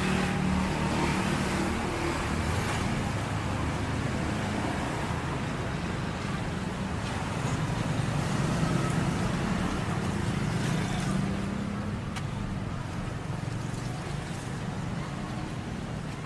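Road traffic on a busy street: vehicle engines running and passing close by, swelling about halfway through as one goes past.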